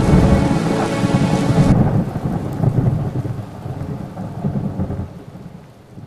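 Rain falling with a low, rolling rumble of thunder, gradually fading out.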